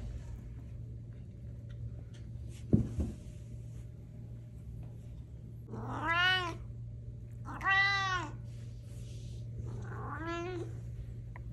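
Domestic cat meowing three times, about two seconds apart, each call rising then falling in pitch. A single sharp thump about three seconds in, with a steady low hum underneath.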